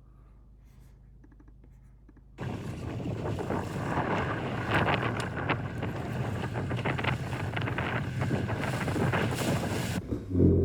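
Low room tone for about two seconds, then an abrupt switch to loud wind buffeting the microphone and water rushing and splashing, as on a sailing dinghy going fast through waves. A heavy low gust hits the microphone near the end.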